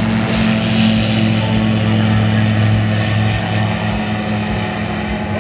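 An engine running steadily with an even, unbroken hum that swells slightly in the first few seconds and then holds.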